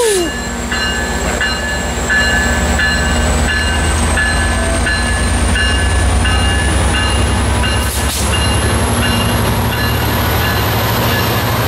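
Amtrak Pacific Surfliner train pulling out behind its diesel locomotive, with a steady engine drone, a faint high whine that slowly rises in pitch as it gathers speed, and the bilevel passenger cars rolling past. A bell dings at a steady beat throughout, and there is a single sharp knock about eight seconds in.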